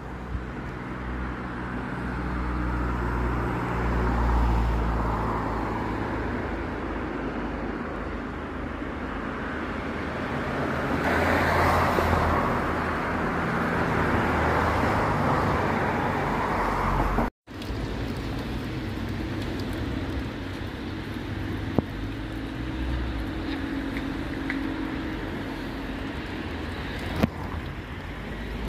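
Road traffic going past, cars swelling and fading one after another over a steady outdoor noise with a low rumble. The sound cuts out for an instant about two-thirds through, and there are a couple of small clicks near the end.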